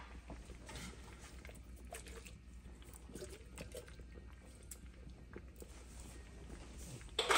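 Faint sounds of food being worked in a wok of thick sweet and sour sauce: small soft plops and clicks, with a sharp knock near the end.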